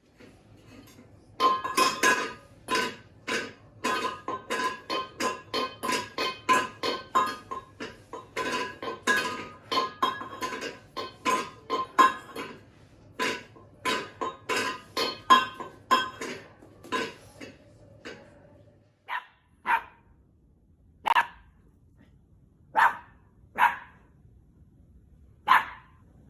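A dog barking over and over, about two barks a second for some fifteen seconds over a low steady hum. After a short pause come a handful of single barks, spaced a second or two apart.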